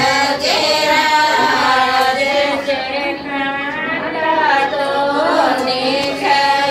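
A group of women singing a devotional folk song together, in long drawn-out lines that rise and fall in pitch.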